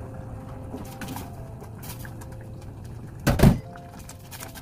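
Silicone spatula stirring a simmering sauce in a stainless saucepan as starch slurry is mixed in to thicken it: faint clicks over a steady low hum. One loud, dull thump about three seconds in.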